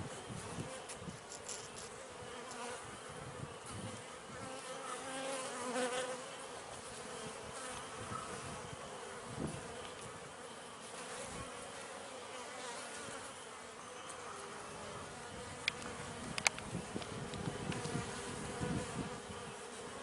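Honeybees buzzing around an open hive in a steady hum, with a few short sharp ticks near the end.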